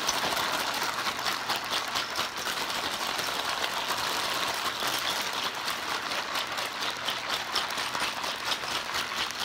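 Towel-wrapped plastic bag of ice and ice cream mix being shaken hard by hand: a quick, even rhythm of muffled rattling and rustling shakes.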